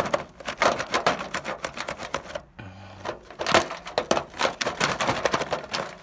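Rapid, irregular clicking and crackling from working at a frozen-up dryer vent hood, as ice and the vent's parts are picked and broken loose. There is a brief pause about halfway through.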